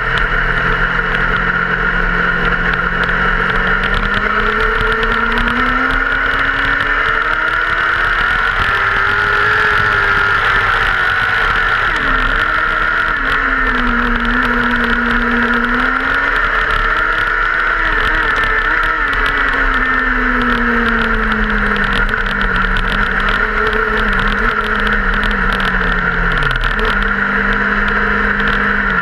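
Dirt-track race car engine heard from inside the cockpit, running at moderate, changing speed: its pitch climbs and falls slowly over several seconds, drops briefly near the end, then holds steady. A constant high-pitched band of noise sits over it throughout.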